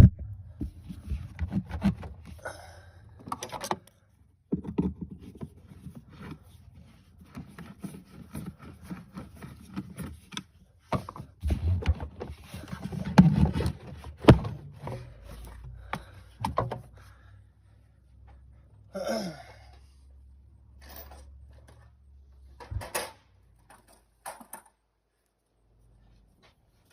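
Hand tools working on car parts in an engine bay during a starter removal: scattered sharp clicks, knocks and scrapes of metal over a low rumble, which stops near the end.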